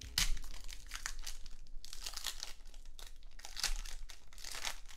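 Foil wrapper of a Pokémon card booster pack crinkling and tearing as it is ripped open by hand, in irregular crackles, the loudest just after the start and again a little past halfway.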